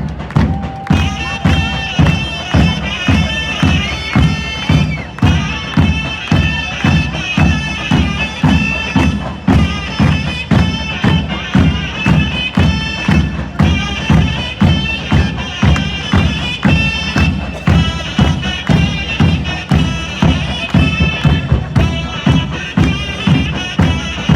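Turkish martial-style music: a shrill, reedy pipe melody, in the manner of a zurna, over a steady heavy drum beat of about two strokes a second.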